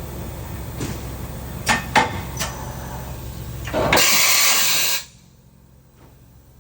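Mori Seiki vertical CNC mill running with a steady low hum and several sharp clicks. A loud rushing hiss comes about four seconds in and lasts about a second, then the hum stops.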